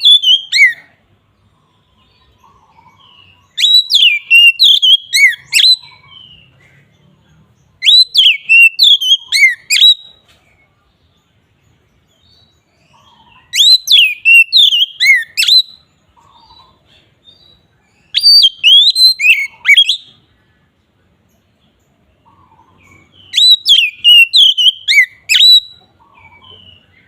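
Oriental magpie-robin (kacer) singing in full, open song: loud phrases of about two seconds of sweeping whistled notes, repeated every four to six seconds, with soft quieter notes between.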